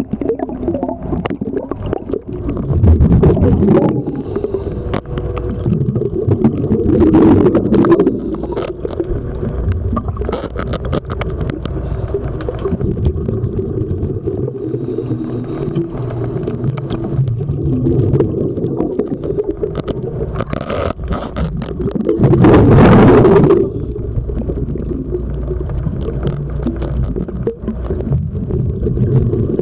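Underwater sound of a diver breathing through a regulator: exhaled bubbles rush past the microphone in loud bursts of about a second, several times, over a steady low rumble of water.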